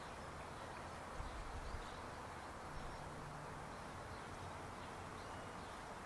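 A steady hum of many bees buzzing together, with no single loud event standing out.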